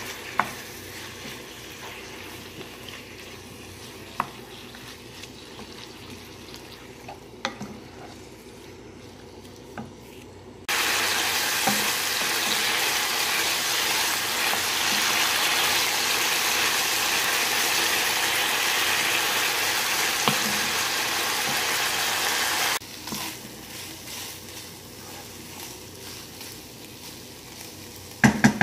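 Chicken strips frying in a nonstick pan and stirred with a wooden spoon, their juices sizzling off as they cook dry. A loud, even sizzle starts abruptly about eleven seconds in and stops just as suddenly some twelve seconds later; before and after it the pan is quieter, with scattered sharp taps of the spoon and a few loud knocks near the end.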